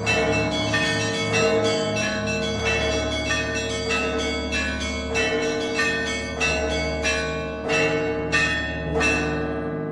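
Russian Orthodox church bells rung by hand in a festal peal: quick, overlapping strokes on small and middle bells over the steady deep hum of a large bell. The strokes stop near the end and the bells ring on.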